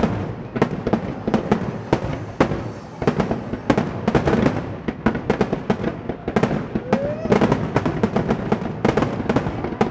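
Aerial fireworks exploding in a rapid barrage, with overlapping bangs several times a second over a continuous rumble.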